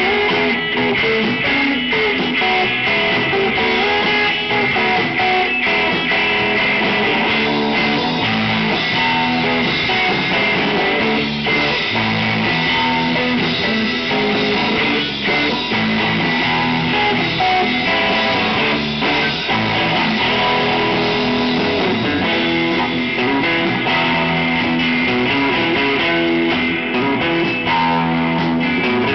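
Live band playing: electric guitars over bass and drums, steady and loud throughout.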